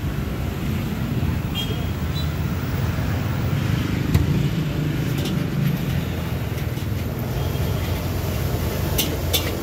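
Steady low rumble of street noise, with a few sharp metallic clicks near the end, typical of a spatula striking a wok.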